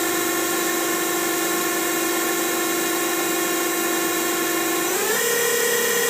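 Spindle of a 2001 Daewoo Lynx 200A CNC lathe running at 1500 RPM with a steady whine. About five seconds in, the pitch rises quickly and settles higher as the spindle speeds up to 2000 RPM.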